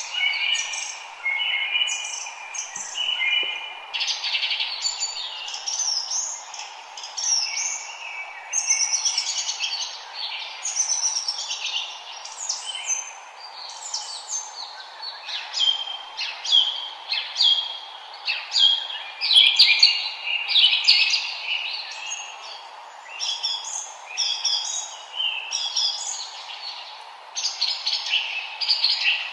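Several songbirds singing and chirping at once, a dense chorus of quick overlapping chirps and trills, over a steady low hiss.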